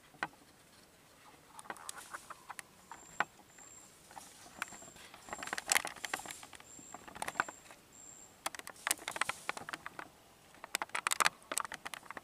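Dry leaf litter rustling and crackling in irregular bursts as red junglefowl scratch and move about on the forest floor.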